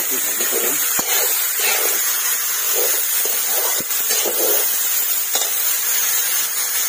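Metal spatula scraping and stirring red lentils frying in a large metal kadai, over a steady hiss, with a couple of sharp knocks of the spatula against the pan.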